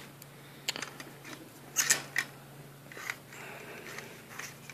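Handling noises: a handful of sharp clicks and taps as a plastic quadcopter propeller is picked up and handled over papers on a counter, with a faint steady low hum underneath.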